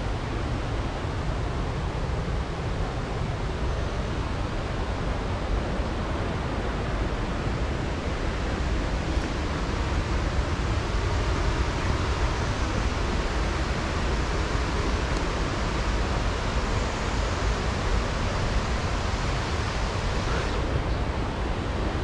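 Steady rush of falling water from the Bâlea waterfall and its mountain stream, growing a little louder partway through.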